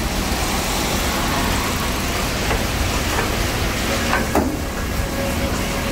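A 2010 Kia Morning SLX's 1.0-litre four-cylinder engine idling steadily, under a steady hiss.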